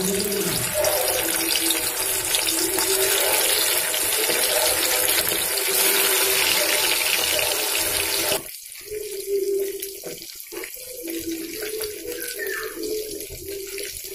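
Pieces of katla fish sizzling and spattering as they fry in hot mustard oil in a kadai. The sizzling is loud and even, then drops suddenly to a quieter, patchier sizzle about two thirds of the way through.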